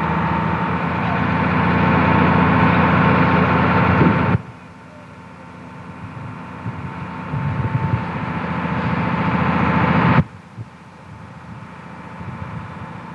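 Fire engine's motor running steadily as it drives the hose pump during firefighting. The sound drops abruptly about four seconds in and again about ten seconds in.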